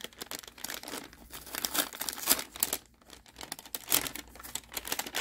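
Brown kraft paper bag crinkling and rustling in irregular bursts as it is unsealed and pulled open by hand.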